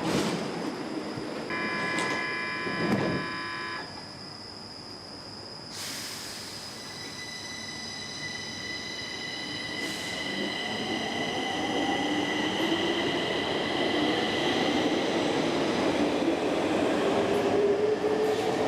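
Stockholm metro train at a platform: a thud, a couple of seconds of steady warning tones, then the electric traction motors begin a whine that rises in pitch and grows louder as the train accelerates.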